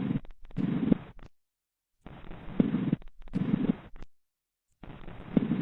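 Lung sounds heard through a stethoscope: breathing cycles of about two seconds each with short pauses between, a low rushing with a few short, sharp clicks in each breath.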